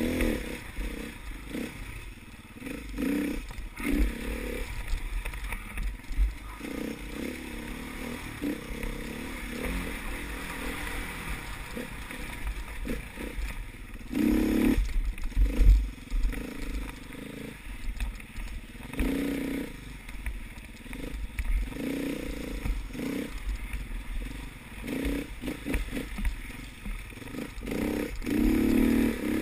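Enduro motorcycle engine heard from an on-bike camera, revving up and easing off again and again under the rider's throttle, with clatter and knocks from the bike over rough ground and one heavy thump about halfway through.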